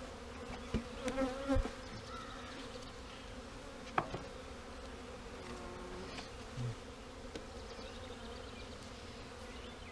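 Many honeybees buzzing steadily around an open hive. A few short wooden knocks of hive boxes and cover being handled sound over the hum, the sharpest about four seconds in.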